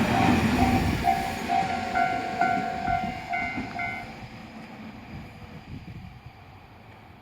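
A Tobu Tojo Line train running past a railway level crossing and fading away. The crossing's warning bell rings about twice a second and stops about four seconds in, as the train noise dies down.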